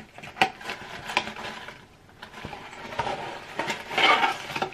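A cardboard beauty subscription box and its wrapping being opened and handled by hand. There is rustling, with several sharp taps and clicks, and the rustling is loudest near the end.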